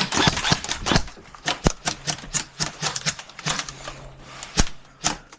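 Airsoft guns firing: a quick run of sharp clacking shots in the first second, then scattered single shots.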